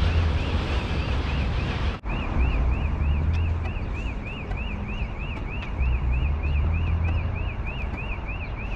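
Strong wind buffeting the microphone with a heavy low rumble, over a high, even chirp repeating about four times a second.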